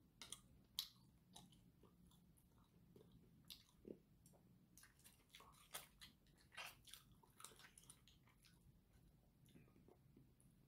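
Faint eating sounds: chewing, and scattered light clicks of chopsticks against plastic takeaway food containers.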